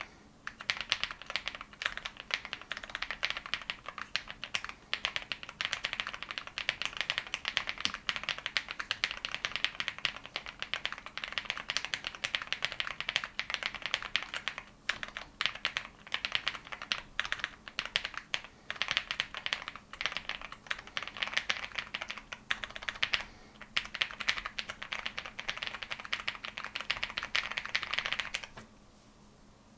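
Continuous fast typing on a Zoom65 mechanical keyboard fitted with lubed Tecsee Oreo switches: a dense run of keystroke clacks that stops near the end.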